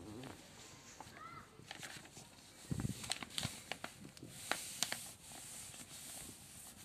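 Pages of a paper textbook being turned and pressed flat: soft paper rustling with scattered light clicks and a dull knock about three seconds in.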